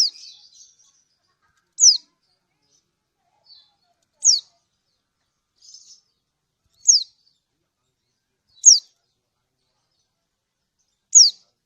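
Kecial kuning, a white-eye, giving its 'ciak' call: short high chirps that fall in pitch, six of them about every two seconds, with faint softer twitters between. It is a female's call to males, used as a lure to get other kecial kuning singing.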